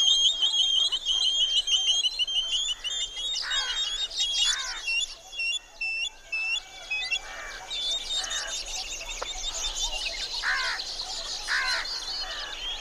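Rainforest bird chorus: several birds calling at once, with fast, high, repeated chirping throughout and pairs of lower calls that fall in pitch, once a few seconds in and again near the end.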